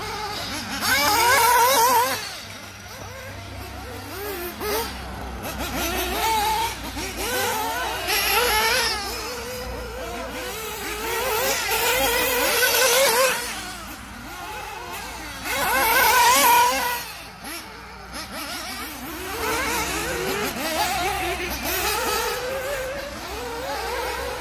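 Mugen Seiki MBX8 1/8-scale nitro buggy with a Bullitt B221 engine lapping a dirt track: the small two-stroke glow engine revs up and down through the straights and corners. It is loudest as the buggy passes close, about a second in, again around twelve seconds and around sixteen seconds.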